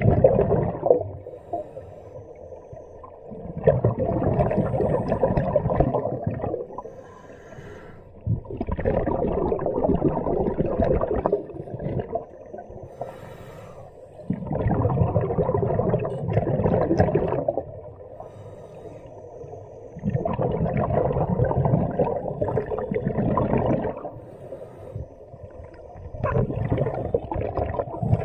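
Scuba diver breathing through a regulator underwater: exhaled bubbles rush out of the regulator in bursts of two to three seconds, about every six seconds, five times, with quieter gaps between breaths.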